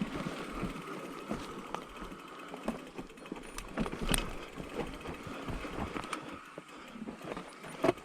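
Specialized Turbo Levo electric mountain bike rolling down a dirt trail: tyre noise with frequent irregular knocks and clicks as the bike rattles over roots and rocks.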